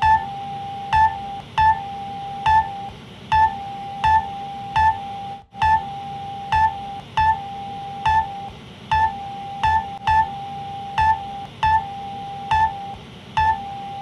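Electronic emergency alert alarm presented as El Salvador's: short sharp beeps at about one and a half a second, with a steady tone held between many of them. The sound drops out briefly about five and a half seconds in.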